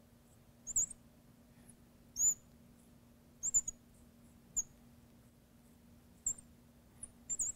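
Marker squeaking on a glass lightboard as lines are drawn: short, high squeaks, some sliding in pitch, about seven in all, over a faint steady hum.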